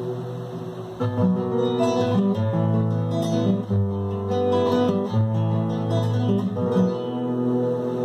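Classical guitar played fingerstyle: a chord rings, then from about a second in a sequence of plucked notes and chord changes follows, settling into a sustained ringing chord near the end.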